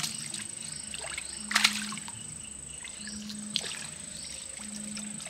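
Shallow pond water splashing and sloshing as a cast net holding fish is handled in it, with the loudest splash about one and a half seconds in. Under it are a steady high-pitched insect buzz and a low hum that comes and goes.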